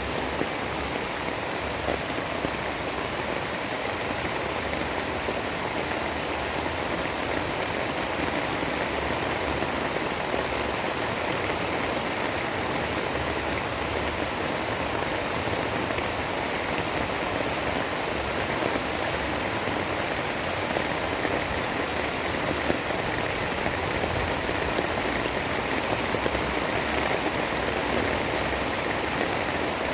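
Steady, even rain hiss with faint scattered drop ticks, unchanging throughout.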